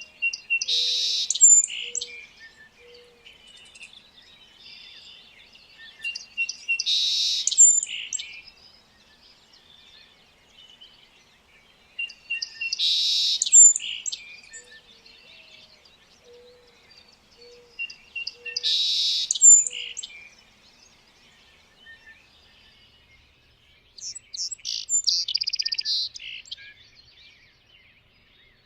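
A songbird singing a phrase of about two seconds, repeated five times at intervals of about six seconds. Fainter chirps from other birds and a few short low notes fill the gaps.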